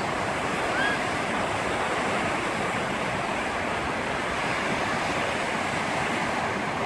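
Small Black Sea waves breaking and washing up on a sandy beach: a steady surf noise with no single crash standing out.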